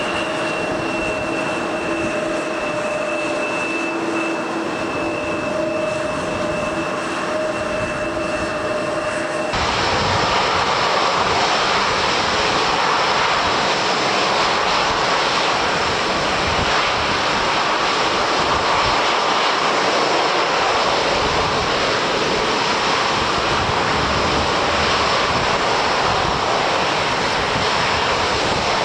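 Jet airliner engines running with a steady whine over a noisy roar. About ten seconds in, the sound switches abruptly to a louder, even roar without the whine, which holds to the end.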